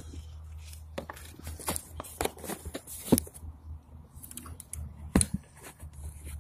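Handling and movement noise: irregular rustles and sharp clicks, the sharpest about three and five seconds in, over a steady low hum.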